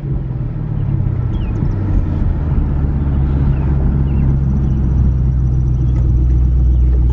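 2007 Ford Mustang's engine and road rumble heard from inside the cabin on a gentle drive: a steady low drone that builds slightly in the first couple of seconds, then holds even.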